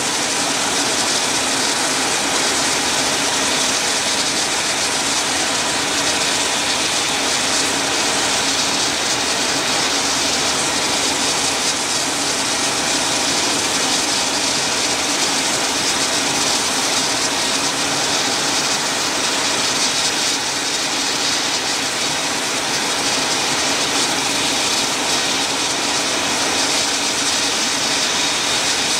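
AH-64D Apache helicopters' twin turboshaft engines running on the ground: a steady turbine whine over a dense rushing hiss that holds level throughout.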